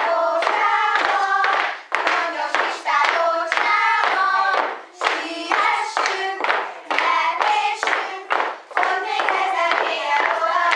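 A group of young children singing a song together, with sharp rhythmic claps keeping the beat.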